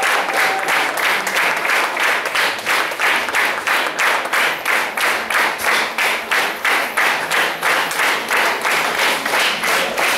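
Audience clapping together in a steady, even rhythm, about three claps a second.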